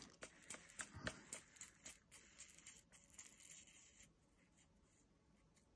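Faint crinkling of a small plastic baggie with light irregular clicks as diamond painting drills are handled, dying away after about four seconds.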